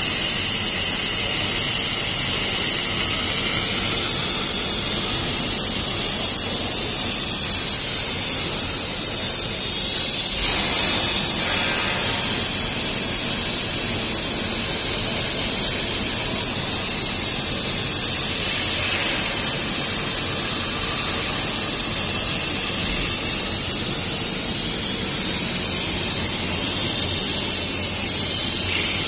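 Steady hiss of a 30 kW fiber laser cutting head's gas jet as it cuts through 50 mm carbon steel plate.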